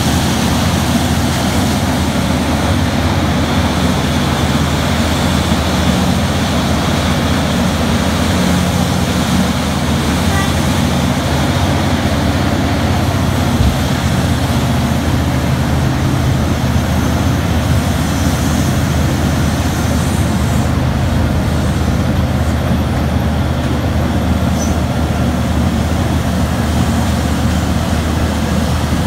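Terex RH170 hydraulic front shovel running under load: a steady, loud diesel engine drone with its hydraulics working as the bucket swings and digs.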